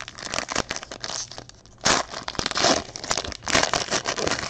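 Foil wrapper of a trading-card pack being torn open and crinkled as the cards are slid out, a run of crackly rustles that is loudest about two seconds in and again near the end.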